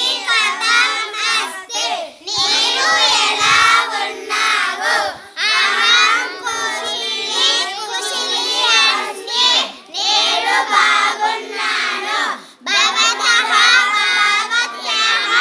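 A group of children singing a Sanskrit verse together in unison, read from a sheet, in phrases broken by short pauses every few seconds.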